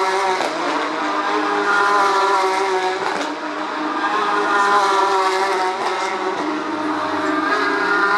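Porsche Carrera Cup race cars' flat-six engines at high revs, several cars going by in succession, their pitch rising and falling as they accelerate and shift.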